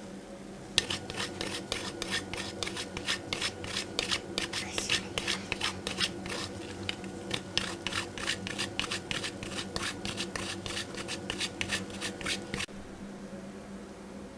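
Rapid, irregular scraping strokes of a kitchen utensil, several a second, that stop suddenly near the end, over a steady low hum.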